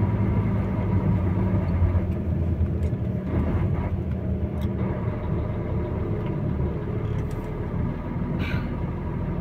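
Engine of the vehicle carrying the camera running steadily on the road, a low hum heard from inside the cab, with a few light rattles.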